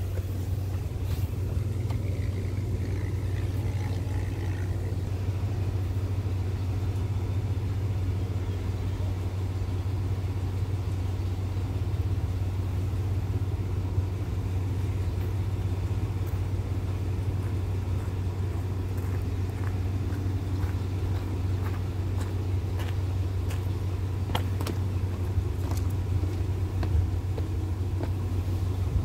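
Diesel engine of a standing train idling with a steady low drone, a few faint clicks about three quarters of the way through.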